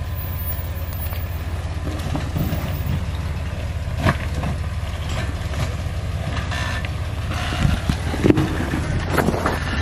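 Jeep Wrangler engine running low and steady as the Jeep crawls down a steep off-road trail, with a sharp knock about four seconds in and a few more knocks near the end.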